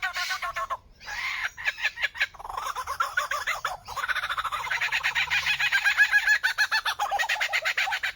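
A bird calling in fast runs of rapid, stuttering repeated notes, with short gaps in the first two seconds and almost unbroken after that.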